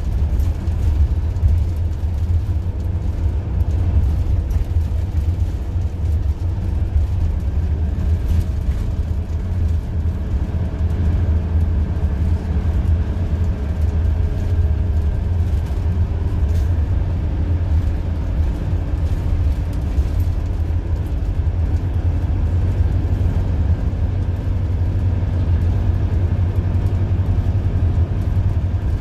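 Inside a 2001 Orion V transit bus under way: its Detroit Diesel Series 50 EGR four-cylinder diesel and Allison B500R6 automatic transmission drone with a heavy, steady low rumble under road noise. A faint whine slides in pitch around the middle.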